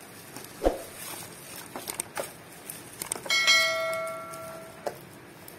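A single bell chime, the notification sound effect of a subscribe-button animation, starts about three seconds in and rings away over about a second and a half. Around it are faint taps and rustles of a cardboard box being handled.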